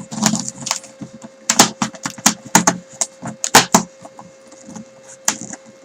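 Hands working open a small cardboard box sealed with tape: quick irregular crackles, taps and tearing, busiest in the middle, over a steady faint hum.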